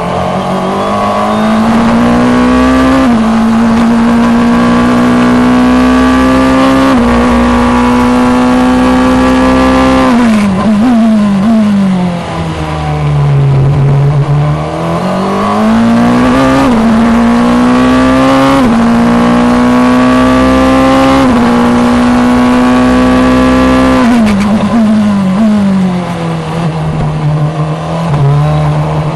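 Onboard sound of a Formula Two car's turbocharged 1.8-litre four-cylinder engine at racing speed. It pulls through two upshifts, then drops through a quick run of downshifts to its lowest pitch about halfway through. It climbs back through four upshifts and drops again for another slow corner near the end.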